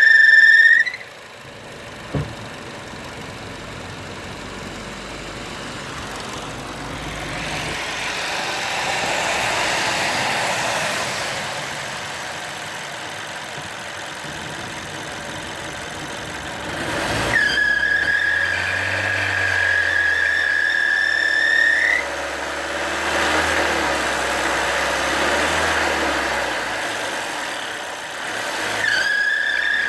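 Opel Astra K 1.6 turbo (B16SHT) engine running with a high-pitched, steady squeal from the engine bay. The squeal comes and goes: briefly at the start, for about five seconds midway, and again near the end. The owner suspects either the belt drive or the diaphragm in the valve cover.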